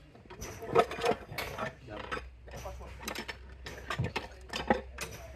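Hand tools working on the gear shaft of a dismantled ZF gearbox: a run of irregular sharp metallic clicks and clanks as a long-handled wrench is worked on the shaft end.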